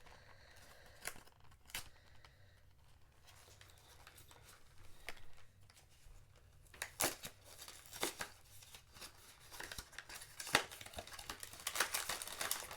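A small cardboard blind box being opened by hand: scattered taps and tearing scrapes, growing into busier rustling of the packaging near the end.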